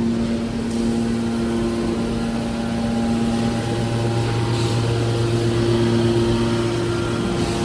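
Hydraulic scrap metal baler running: a steady machine hum with several held tones over a low drone, the tones shifting about halfway through.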